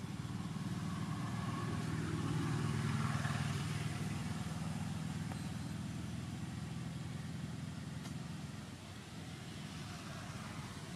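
Engine of a motor vehicle running as a steady low hum, loudest a few seconds in and easing off near the end.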